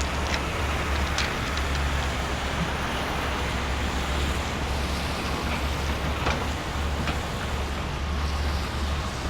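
Wind rumbling steadily on the microphone, with a few scattered clicks of small stones being moved by a toy excavator.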